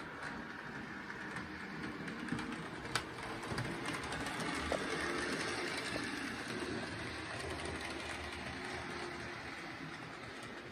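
HO scale Spectrum 2-10-0 Russian Decapod model steam locomotive running on the track, its motor and wheels whirring. The sound grows louder to a peak about five seconds in as the locomotive passes close, then fades. A few sharp clicks come in the first four seconds.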